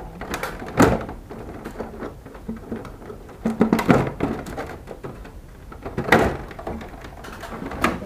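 Knocks and clatter of hard objects being handled: a sharp knock about a second in, a burst of clattering near the middle, then two more single knocks.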